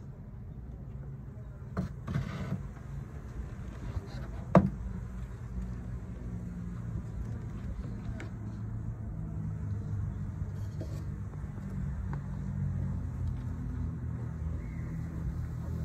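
Low, steady hum of honeybees around an opened hive, mixed with rumble, broken by a few knocks about two seconds in and one sharp click about four and a half seconds in.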